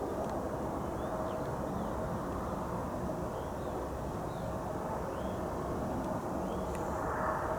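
Steady low rumble of distant engines with a faint steady hum, while a small bird chirps several times.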